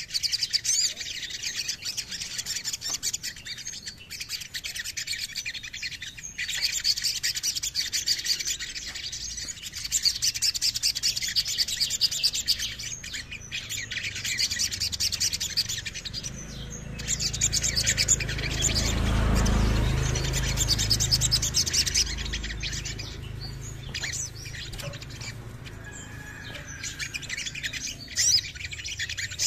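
Male olive-backed sunbird singing: rapid, high, thin twittering trills and chirps. Around the middle, a low rumble swells and fades beneath the song.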